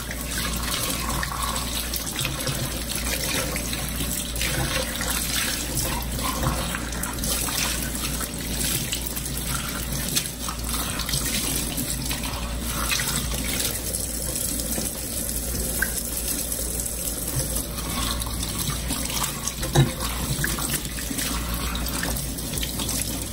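Kitchen faucet running steadily into a stainless-steel sink while halved bell peppers are rinsed under the stream. A single sharp knock sounds near the end.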